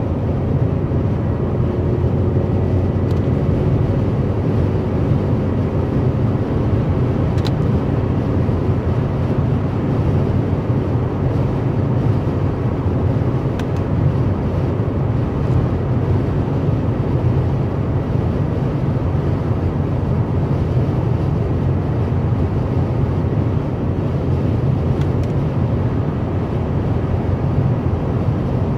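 Steady road and tyre noise with engine hum from a car cruising at motorway speed, heard inside the cabin through a dashcam.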